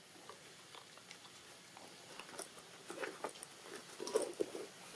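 Young macaque chewing and smacking on a banana: faint, irregular wet clicks that come thicker and louder in the second half.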